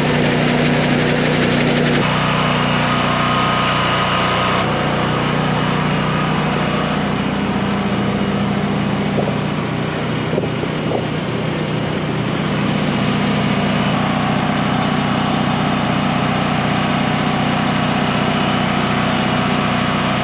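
An engine idling steadily, a low even hum that goes on without a break.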